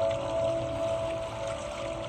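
Calm background music with long, held tones.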